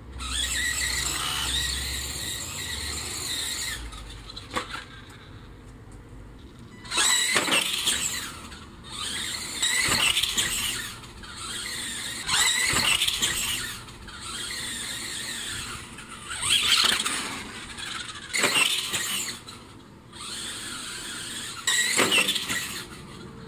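Axial Yeti Jr RC truck's Tamiya Sport Tuned 380 brushed electric motor and geartrain whining high in repeated bursts of throttle, with a few sharp knocks in between.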